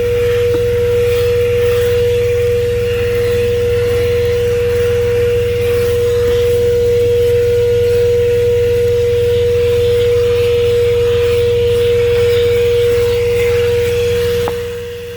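ThisWorx 12-volt handheld car vacuum running steadily with a high, even motor whine, over the low hum of the truck's idling engine. The sound dips briefly near the end.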